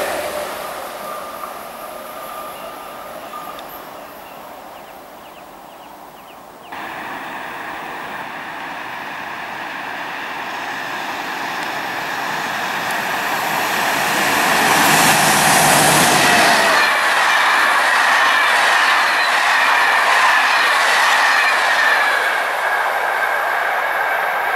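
Electric trains on the rails: the rumble of a departing double-deck train fades away, then after a sudden jump in level another train approaches and passes, its wheels running loudly on the track with a steady high whine through the second half.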